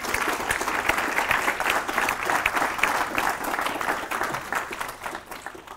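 Live audience applauding, a dense patter of many hands clapping that fades out near the end.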